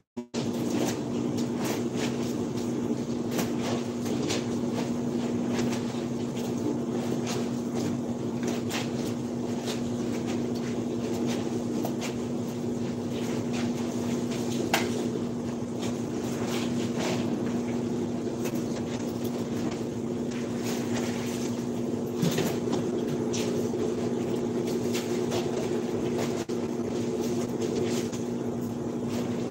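A steady machine hum with an unchanging low drone, over which come scattered light clicks and knocks of things being handled at the counter.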